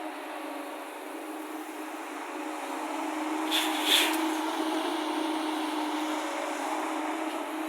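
Heavy diesel engine running steadily, with two short clanks close together about three and a half seconds in.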